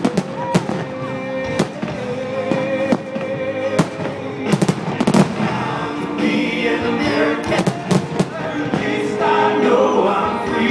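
Fireworks display: aerial shells going off in repeated sharp bangs and crackles, with a dense cluster of bursts near the start and another about five seconds in. Music plays underneath throughout.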